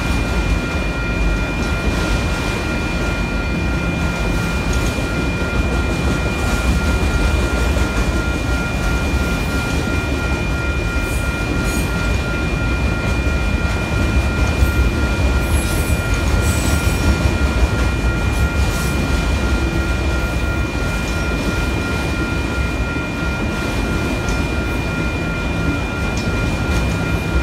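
Autorack freight cars rolling past a grade crossing: a steady, loud rumble of steel wheels on the rails. Above it runs a steady high ringing, fitting the crossing's warning bell.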